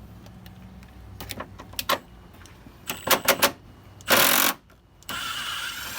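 Clicks and knocks from the Ford Explorer's front light housing and turn-signal bulb socket being worked loose by hand, with a short loud scrape about four seconds in and a steady hiss near the end.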